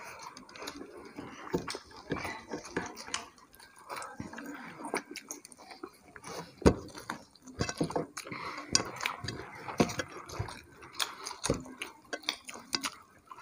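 Eating with the hands: fingers mixing rice and curry on plates, with scattered soft taps and clinks of plates and bowls, and chewing. One sharper knock comes about halfway.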